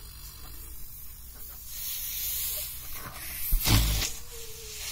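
Refrigerator compressor rigged as an air compressor, hissing air steadily with its motor humming underneath. About three and a half seconds in comes a louder, half-second rush of air with a low thump.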